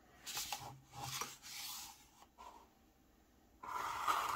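Mechanical pencil drawing straight lines on paper along a ruler: several separate strokes, the longest one near the end.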